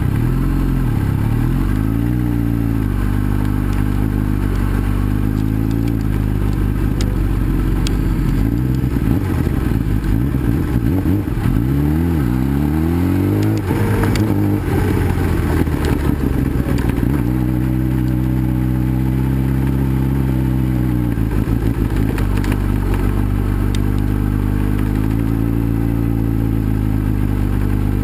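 Kawasaki ZX10R's inline-four engine heard from onboard, running at modest revs on a gravel track. Its pitch rises and falls again and again as the throttle is opened and closed, and it holds steady for a few seconds past the middle. A few sharp clicks come around the middle.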